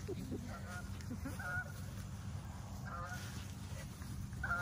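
Geese honking as they fly over: several short honks, about one every second and a half.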